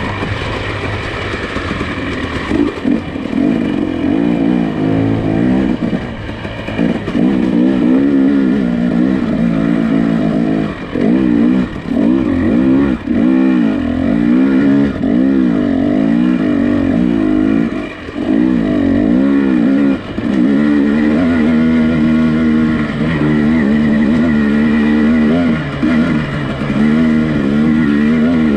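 Nissan Pathfinder engine working on a rough off-road trail, its pitch rising and falling over and over as the throttle is worked, with brief dips about eleven and eighteen seconds in.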